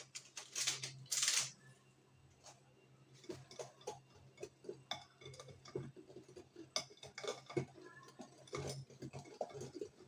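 A couple of short rustling hisses about a second in, then a kitchen utensil clinking and scraping against a bowl as basbousa batter of semolina, eggs, oil, yogurt and baking powder is stirred together, over a faint steady low hum.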